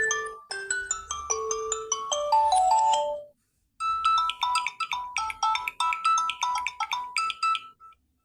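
Samsung Galaxy Tab A7 Lite ringtones played one after another. One melody of short chiming notes stops about three seconds in. After a brief gap, a different, higher melody repeats a short phrase and stops shortly before the end.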